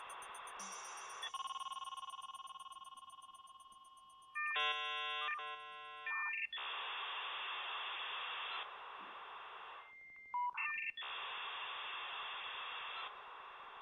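Telephone-line sounds with the narrow, thin quality of a phone line. There is a steady hiss of an open line. About a second in, a ringing tone fades away, followed by a burst of dialing tones at around four and a half seconds and short beeps near ten seconds, with line hiss in between.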